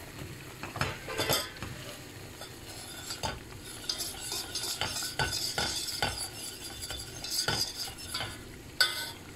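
Wire whisk stirring a butter-and-flour roux in a stainless steel pot, scraping and clicking against the pot's sides and bottom as the roux toasts. A sharper knock of the whisk on the pot comes near the end.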